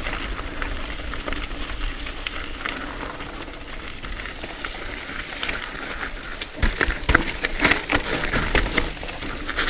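Mountain bike rolling over a rough, rocky trail: a steady crunch of tyres on gravel with many small clicks and knocks of the bike rattling. From about six and a half seconds in the knocks get louder and busier.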